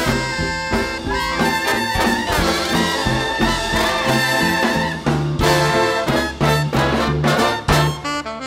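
Big-band jazz in swing style: the trumpet and trombone sections play a loud passage together over the band.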